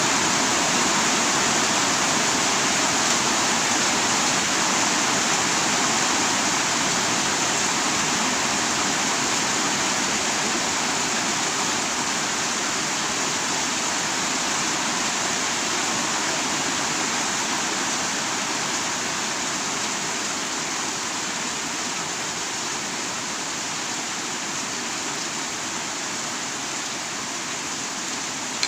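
Heavy rain falling steadily, a dense even hiss that eases a little toward the end.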